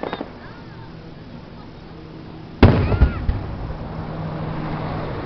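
Fireworks display: one sharp, loud firework boom about two and a half seconds in, followed by a rolling echo that slowly fades.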